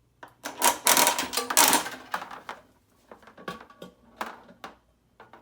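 Hard gumballs clattering into a gumball machine, a dense rush of clicks and rattles for about two seconds, then fewer separate clicks as they settle.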